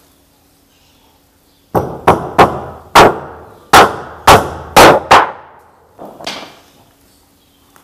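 Hammer blows on the timber of a wooden boat under construction: about eight sharp, ringing strikes in quick, uneven succession, then one lighter knock.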